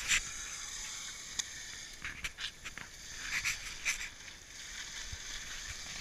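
Tyres of an electric recumbent trike hissing and scraping as it slides sideways on an icy street, with irregular short scrapes and crunches.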